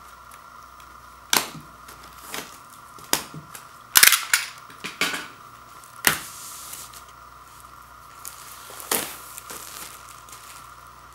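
Plastic shrink wrap on a vinyl LP jacket crackling as it is slit with a utility knife and pulled away: a string of sharp crinkles and snaps, loudest around four seconds in.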